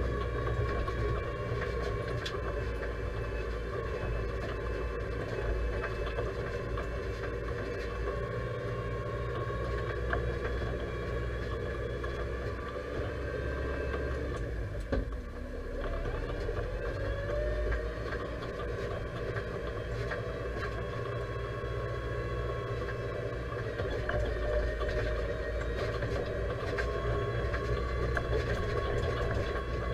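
Deutz-Fahr 5100G tractor engine running steadily, heard from inside the cab, while pulling a forage trailer. About halfway through the level briefly dips, then the engine note climbs again.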